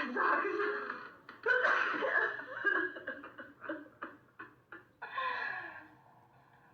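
A person sneezing, sharp explosive sneezes at the start and about a second and a half in, then a run of short breathy laughs and another sneeze-like burst near the end.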